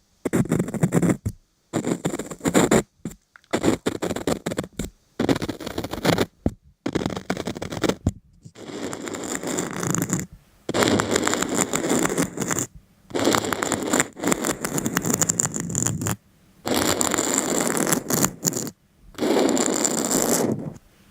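Scratching and scraping strokes on a surface in bursts, short in the first half and lasting two to three seconds later, each cut off abruptly by moments of silence.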